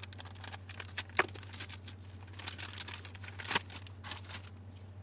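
New angle-grinder armature being unboxed by hand: crinkling and rustling of its packaging, with two sharper clicks, one about a second in and one about three and a half seconds in.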